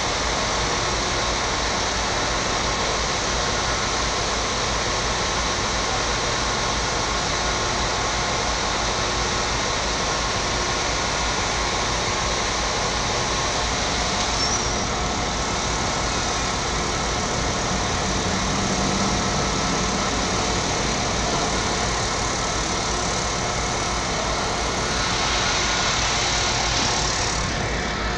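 Steady running noise of a train moving slowly through a railway yard: an even rumble and rush with no break. The higher hiss swells briefly near the end.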